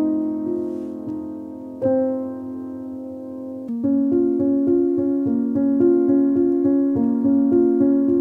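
Background piano music: slow held chords at first, then from about four seconds in a steady pattern of repeated notes, about two a second.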